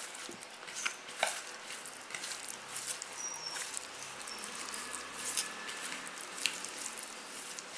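Hand squishing and mixing a wet spice paste of chilli powder, ginger-garlic paste, cornflour and oil in a plastic bowl: irregular wet squelches and small clicks of fingers against the bowl.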